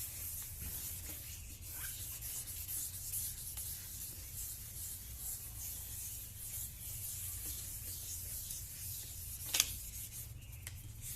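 A plastic headlight lens being wet-sanded by hand with 1000-grit sandpaper: a continuous back-and-forth rubbing hiss, stroke after stroke. A single sharp click stands out near the end.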